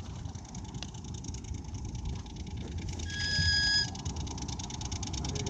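A ride-on scale locomotive's whistle sounds once for about a second, a bright note of several tones together, about three seconds in. Under it runs a steady low rumble with fast, even ticking.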